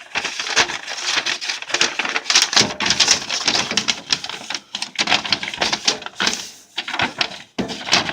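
A quick, irregular run of clicks and taps that thins out twice and stops for a moment about three quarters of the way through.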